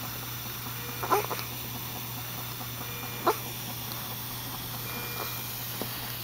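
Newborn baby hiccuping: two short, sharp hiccups about two seconds apart.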